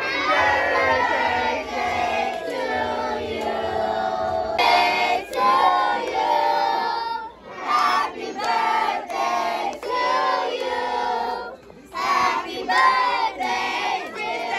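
A group of people singing together, in phrases separated by short breaths, with some crowd noise.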